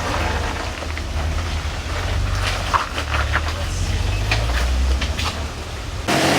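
Off-road Jeep engine running at low, uneven revs, with scattered sharp cracks and crunches over it. The sound changes abruptly near the end.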